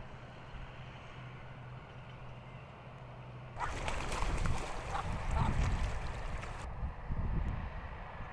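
Muscovy ducks splashing and beating their wings across the water in a short rush, starting abruptly about three and a half seconds in and lasting about three seconds.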